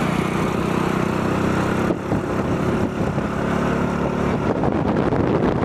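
Motorcycle engine running at a steady speed under way, with wind rushing over the microphone. The engine note drops out briefly about two seconds in, then resumes at a slightly different pitch.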